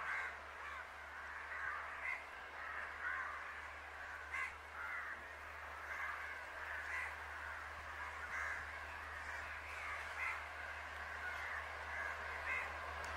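Crows cawing over and over, several birds calling at once, over a steady low hum; near the end a train's approach begins to rise underneath.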